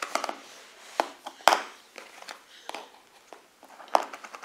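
Plastic stacking-pyramid rings knocking and clattering on a floor as they are handled and dropped: several short knocks, the loudest about one and a half seconds in.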